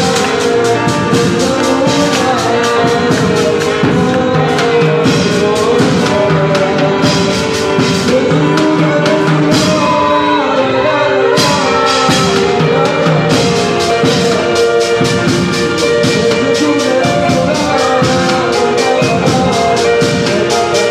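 A man sings through a microphone, backed live by a drum kit keeping a steady beat.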